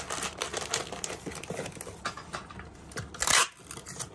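Plastic packaging crinkling and a cardboard box rustling as a bagged squishy is pressed into it. About three seconds in, packing tape is pulled from a handheld tape dispenser with a loud, short rip.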